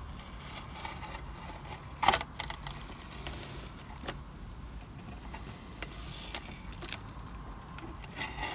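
Masking tape being peeled off a model building's wall: quiet rustling with a few short, sharp crinkles of the tape.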